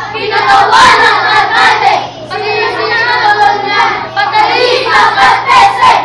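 A group of children singing together in unison, with a short break about two seconds in.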